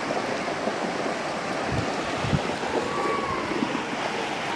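Floodwater rushing past in a steady noisy flow, with a couple of low thumps near the middle.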